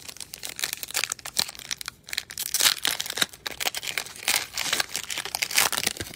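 Foil wrapper of a Panini Illusions basketball card pack crinkling and crackling in the hands as it is torn open, a dense run of small crackles that starts suddenly and stops near the end.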